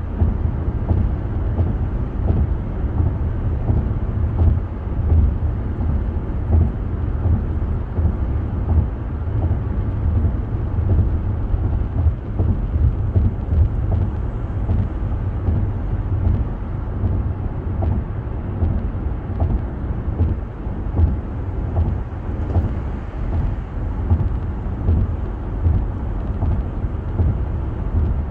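Steady low rumble of tyre and road noise with engine hum, heard inside a car cabin while cruising at highway speed.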